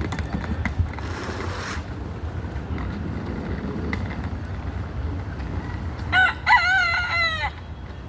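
Rooster crowing once about six seconds in: a crow of about a second and a half, with short rising notes and then a long held note that falls at the end. A steady low rumble sits underneath.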